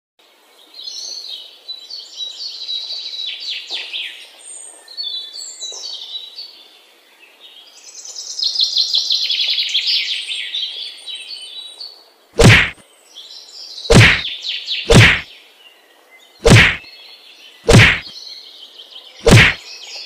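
Birds chirping in quick high trills for about the first ten seconds. Then six heavy wooden thwacks, a second or so apart, as of logs being dropped onto a pile, with light chirping between them.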